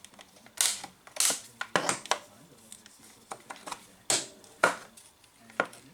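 Wire cutters or strippers snipping and clicking on a corroded sensor wire as it is cut back and stripped, a series of sharp, irregularly spaced snaps.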